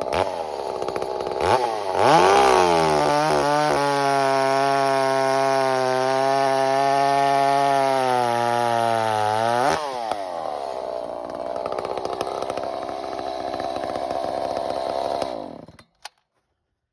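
Echo CS-590 Timberwolf chainsaw, ported and with a piped muffler, revving up about two seconds in and held at full throttle for about seven seconds, then dropping back to idle. The engine cuts off suddenly near the end.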